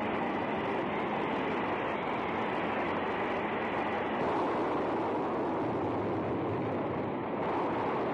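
Steam rushing out of an overpressured boiler: a steady, loud hiss with no break.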